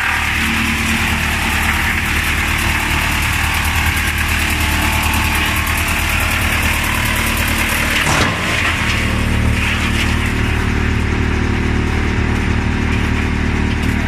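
YMPJ 218 drum wood chipper (160 kW) running under load, its drum cutting a log into chips: a steady low hum under a dense hiss of chipping. About eight seconds in there is a brief break, after which the low hum is stronger.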